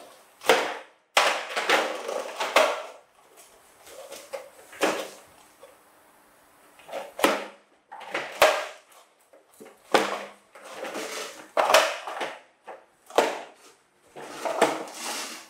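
Plastic toy dump truck knocking, clattering and scraping on a wooden floor as a monkey shoves it and tips it onto its end, in irregular bursts.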